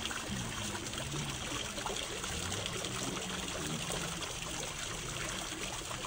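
Water from a tiered horse-sculpture fountain, steadily splashing and trickling from its upper bowls down into the basin.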